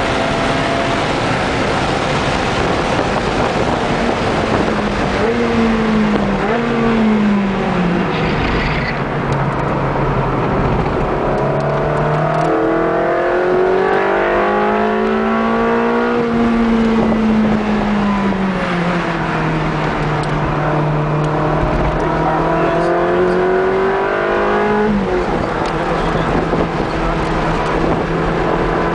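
Ferrari 360 Challenge Stradale's 3.6-litre V8 heard from inside the cabin under hard track driving, its revs climbing and falling several times through acceleration and braking, with a quick drop in pitch near the end. Wind and tyre noise run underneath.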